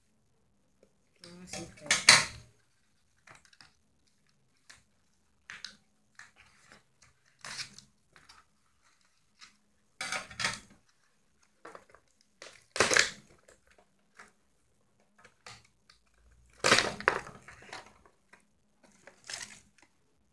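Scissors cutting and tearing a cardboard box insert, in irregular crunches and snips with pauses between, the loudest crunches about two seconds in, near the middle and late on.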